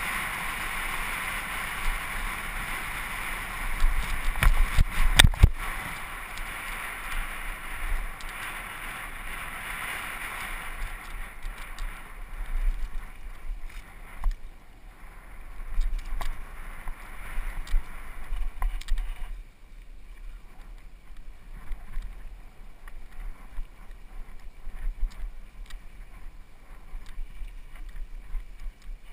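Mountain bike riding down a dry dirt trail: a steady rush of wind and tyre noise, with knocks and rattles from the bike over bumps. A cluster of hard thumps comes about four to five seconds in, and after about twelve seconds the rush drops away, leaving mostly scattered clicks and rattles.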